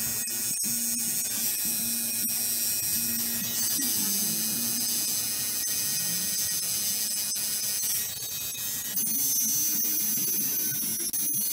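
Tattoo machine buzzing steadily as it works on skin, breaking off briefly about eight seconds in.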